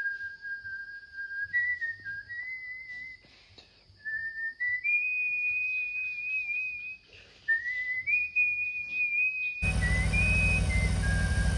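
A tune whistled in single held notes that step up and down in pitch. About two-thirds of the way in, a motorcycle engine's steady running sound starts suddenly under the whistling.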